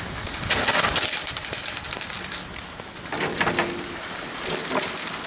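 Skis hissing and scraping over packed snow while being towed up a surface drag lift, with a steady crackle of fine ticks. A thin high squeal comes about a second in, and a short lower squeak a little after three seconds.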